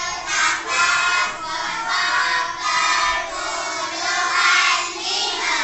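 A class of young children singing together in unison.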